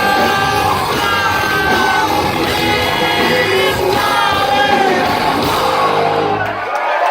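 Live rock band playing loudly with sung vocals, as heard from within the audience. Near the end the band stops and the crowd starts cheering.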